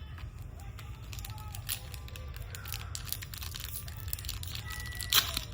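Foil trading card pack wrapper crinkling and tearing, with a run of quick rustles and clicks that grows busier and has its sharpest crackle about five seconds in.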